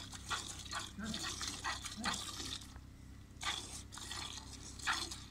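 Milk squirting from a cow's teats into a plastic bucket during hand milking: short squirts, two or three a second, one with each pull, with a brief pause about halfway through.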